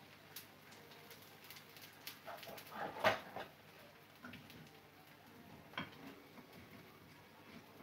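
Light clinks and knocks of a batter bowl, spoon and frying pan being handled at a stove. The loudest is a clatter about three seconds in, with smaller knocks scattered through the rest.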